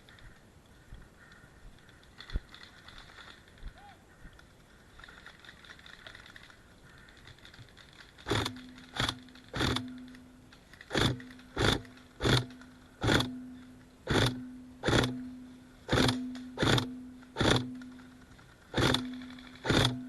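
An airsoft gun firing single shots, about fourteen sharp cracks at an uneven pace starting around eight seconds in, after a quieter stretch with a few faint clicks.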